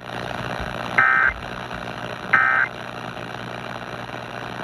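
Emergency Alert System end-of-message data bursts: two short buzzy electronic chirps about a second and a half apart, completing the three-burst sequence that closes an EAS broadcast. They sound over a steady background hum and hiss.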